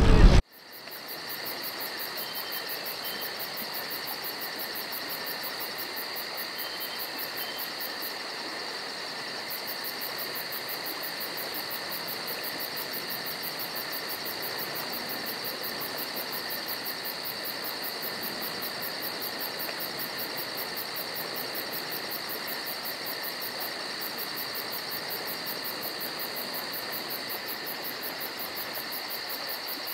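Crickets chirping in a steady, rapid, high trill. A louder burst of voices and motor noise cuts off about half a second in.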